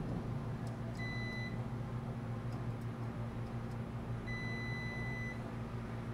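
A multimeter beeps twice, a short tone about a second in and a longer one of about a second past the four-second mark, as its probes are held on a hermetic compressor's terminals during a check to ground. Under it runs a steady low machinery hum.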